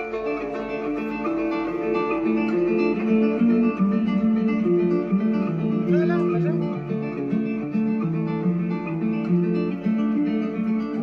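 Acoustic guitar music, a plucked melody of changing notes.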